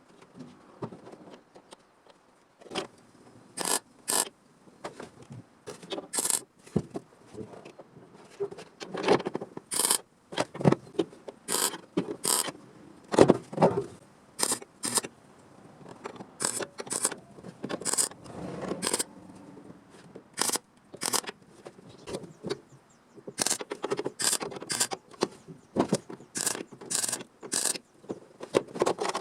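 Hand work on a sheet-metal reinforcement panel: irregular sharp clicks and snips mixed with scraping.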